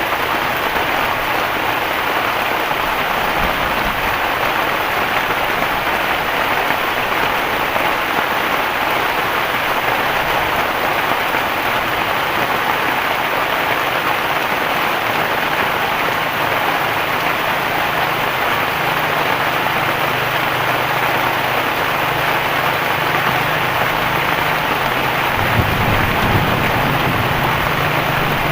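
Heavy rain falling steadily in an even hiss. About two-thirds of the way through, a low steady hum like a distant engine comes in under it, with a brief low rumble near the end.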